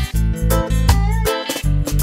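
Background music with short plucked notes over a deep bass line.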